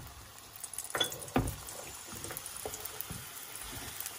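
Paratha frying in an oiled nonstick pan, a faint, steady sizzle of hot oil, with a few light taps about a second in and again a little later.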